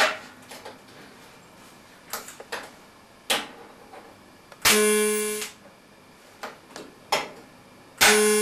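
TIG welding arc tacking stainless-steel pieces: two short, even buzzes, each just under a second, starting and cutting off abruptly. Light metallic clicks come between them as the pieces are set against each other.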